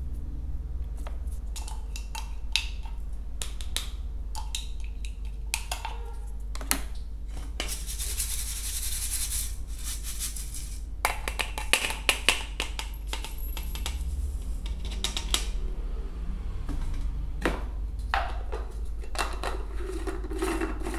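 Clinks and taps of a small glass blender jar and a stainless steel bowl being handled, with a hiss of ground bird feed poured from the bowl into the jar about eight seconds in, then a run of sharper knocks. Near the end the blender's plastic blade base clicks as it is screwed onto the jar. A steady low hum runs underneath.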